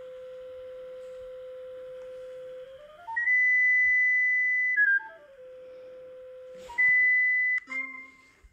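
Sony Aibo ERS-7 robot dog's speaker sounding a steady electronic tone whose pitch follows a hand moved toward and away from its nose distance sensor, showing the sensor is working. The low tone climbs in steps to a much higher, louder tone about three seconds in, steps back down about five seconds in, and jumps up again near seven seconds. A short cluster of tones comes near the end.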